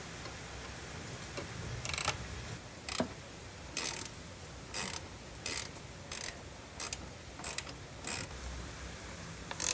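A 13 mm ratcheting wrench clicking in short bursts on its back-strokes, about ten times at a little more than one a second, as it tightens a sway bar end-link bolt while a second wrench holds the nut.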